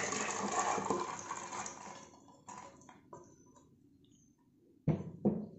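Soaked kidney beans tipped by hand from a steel bowl into a pressure cooker, a rush of noise that fades out over about two seconds. A few light clicks follow, then two sharp knocks near the end.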